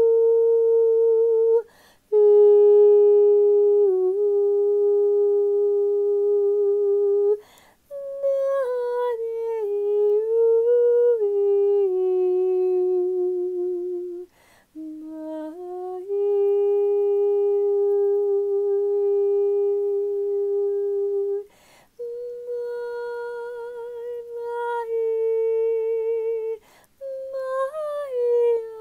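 A woman's unaccompanied voice toning: about six long wordless held notes, a few seconds each, with short breaths between. Some notes hold steady, others waver and slide up and down in pitch.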